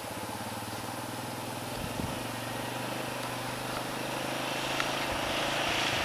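A 4x4 ATV's engine runs steadily in the distance and grows gradually louder as the quad approaches. Near the end a hiss of water spray builds as it drives into the swamp.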